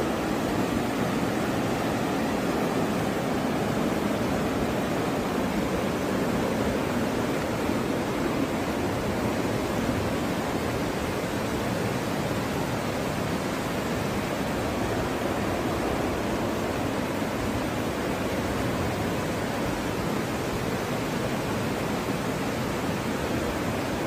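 Steady rushing of muddy floodwater: an even, unbroken wash of noise with no separate splashes or other events standing out.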